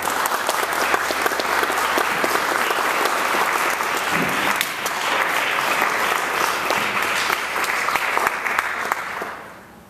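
Audience applauding: dense clapping that starts suddenly and dies away near the end.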